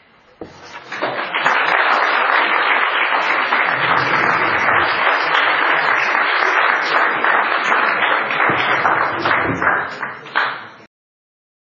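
Audience applauding, swelling over the first second or so, then steady, and cutting off suddenly near the end.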